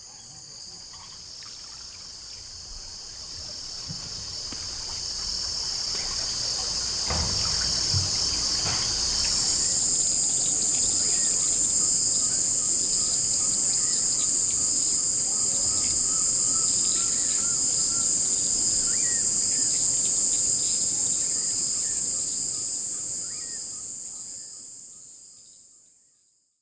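Night insect chorus in a wetland: a dense, steady high-pitched trill that swells over the first ten seconds, holds, then fades out near the end. Faint scattered calls sound beneath it.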